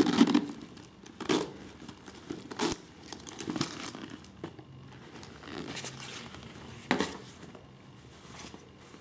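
A Louis Vuitton Monogram canvas handbag being handled and turned over: rustling and crinkling with scattered short, louder scuffs, the loudest right at the start; near the end, softer rustling as a fabric dust bag is handled.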